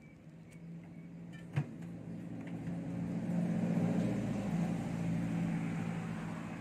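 A motor vehicle engine running close by, a steady low hum that grows louder to a peak about four seconds in and then eases off. A single sharp click about a second and a half in.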